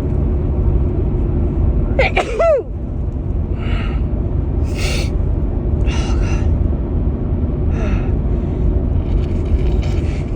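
A woman's allergy sneeze, a short voiced cry about two seconds in, followed by several short, sharp breaths over a steady low rumble of a car on the road.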